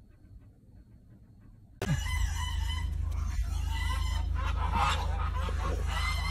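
Loud, high farmyard animal cries start suddenly about two seconds in, over a steady low hum. Before that it is nearly quiet.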